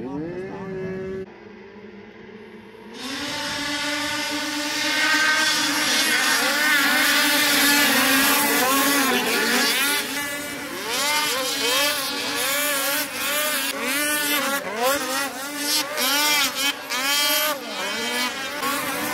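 A pack of snocross racing snowmobiles running their two-stroke engines. About three seconds in, the engines come in loudly together at high revs. From about halfway on, many overlapping engine pitches rise and fall as the sleds rev on and off the throttle.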